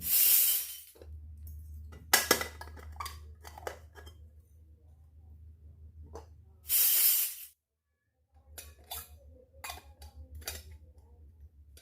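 Small toy kitchen pieces being handled, with scattered clicks and taps. Two loud bursts of hiss about a second long come at the start and about seven seconds in, over a low steady hum.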